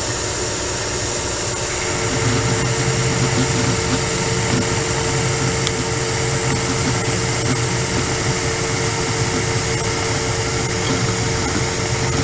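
Metal lathe running at about 300 RPM, taking a heavy roughing cut on a steel bar under flood coolant. About two seconds in the sound steps up, and a steady hum and a stronger low drone set in as the tool bites into the work.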